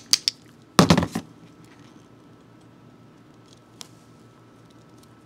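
Steel cable-cutter pliers being handled: a few light clicks, then a short clatter about a second in as a cutter is put down on the table and another picked up, and one faint click near the end.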